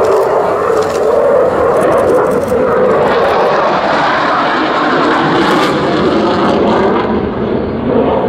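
A Belgian Air Force F-16 fighter's jet engine, a loud, steady rush of jet noise as the jet banks through a display turn overhead. The high hiss thins out about seven seconds in.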